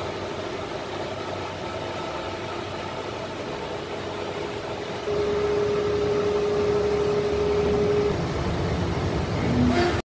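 Sabroe SAB 163 HF MK3 screw compressor unit running, driven by its 200 kW, 2960 rpm electric motor: a steady mechanical hum and hiss. It grows louder about halfway through and carries a steady tone for about three seconds, then cuts off suddenly.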